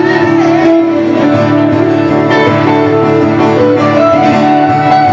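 Live acoustic-electric guitar strummed through the PA, with long held melody notes over it.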